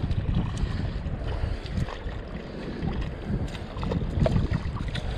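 Wind buffeting the microphone in an uneven low rumble, with shallow water lapping and small splashes and clicks around the wader.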